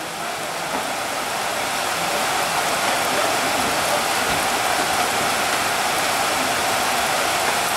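Steady rain falling, a dense even hiss that builds a little over the first couple of seconds and then holds.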